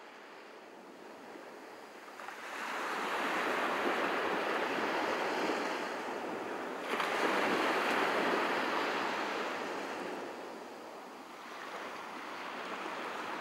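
Sea waves breaking and washing up a sand and pebble beach in surges: one builds about two seconds in, a sharper one breaks about seven seconds in, and another swells near the end.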